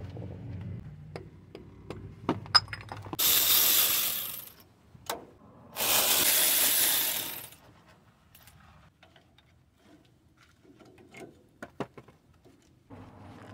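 Metal tools and parts clinking and rattling at a van's front wheel hub, with two bursts of steady hissing, about three and about six seconds in, each lasting a second or two.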